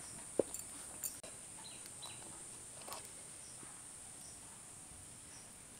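Steady high-pitched drone of crickets, with a few sharp knocks of cookware being handled, the loudest about half a second in.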